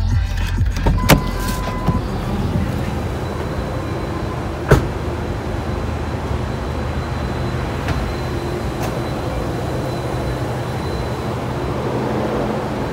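Steady hum of a car with its engine running, heard from inside the cabin. A few clicks come early on, and there is one sharp knock about five seconds in.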